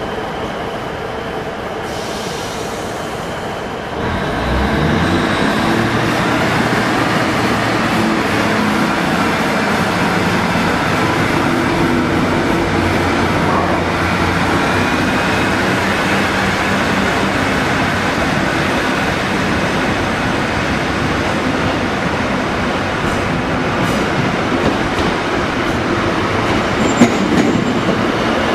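Class 150 Sprinter diesel multiple unit's engines throttling up about four seconds in, the engine note rising as the train pulls away, then running steadily. A few sharp clicks near the end as the wheels pass over rail joints.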